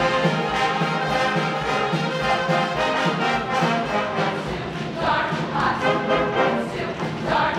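All-female show choir singing in many voices over instrumental accompaniment with a steady drum beat.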